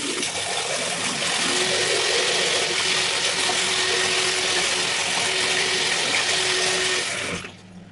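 Bathroom tap running steadily into a sink as an electric toothbrush head is rinsed under it, then shut off suddenly about seven seconds in.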